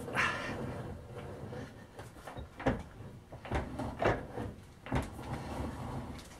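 Vernon lathe carriage cranked along the bed by its handwheel, scraping at first and then clunking several times at irregular intervals as it binds and jams. The owner suspects chips wedged under the carriage.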